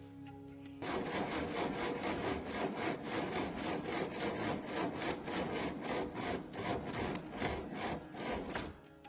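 Rapid back-and-forth rubbing or scraping strokes of a hand tool working a surface, several strokes a second. They start about a second in and stop shortly before the end.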